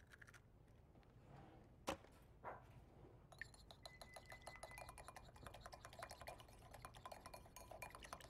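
Small wire whisk beating an egg in a bowl: a quick, light run of clicks and scrapes against the bowl, starting a little over three seconds in. Before it, a single sharp click about two seconds in.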